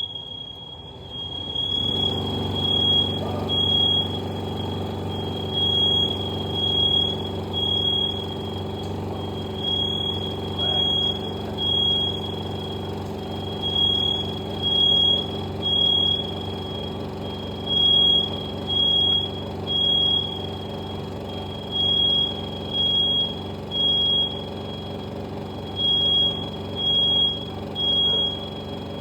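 Household smoke alarm sounding: a piercing high beep in repeated groups of three with short pauses, set off by smoke from burgers cooking. About two seconds in, a steady low machine hum starts under it.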